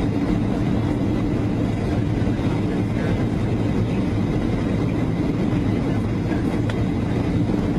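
Steady cabin noise of a four-engine jet airliner in cruise, heard from inside the cabin at a window seat: a constant low rumble of engines and airflow, with one faint click near the end.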